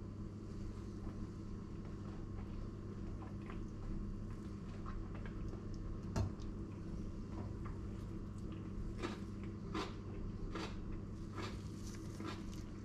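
Someone eating a meal: short sharp clicks and crunches of cutlery on a ceramic plate and bites of pickle slices, sparse at first and more frequent in the second half, the loudest about six seconds in, over a steady low hum.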